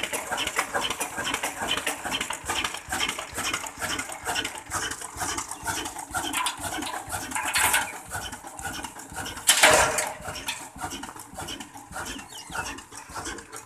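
Old Ruston Hornsby diesel engine running, a steady knocking beat of about four strokes a second with metallic clatter from the engine and its flat belt drive. About ten seconds in there is one louder, half-second burst of noise.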